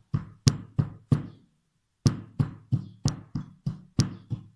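Brass pestle pounding whole cloves in a brass mortar: sharp metallic knocks with a short ring, about three a second, pausing briefly about a second and a half in before carrying on.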